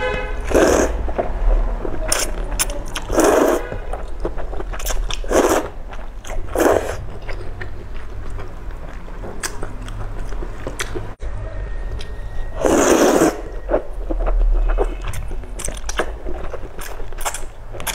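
Close-up slurping of noodles in broth, with about five loud slurps each lasting up to a second. Between them come wet chewing and small lip-smacking clicks.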